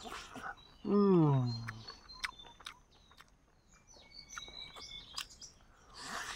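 Someone biting into and chewing chicken legs, heard as scattered small clicks and crunches. About a second in, a low hum-like voice falls in pitch for under a second and is the loudest sound. Birds chirp faintly in the background.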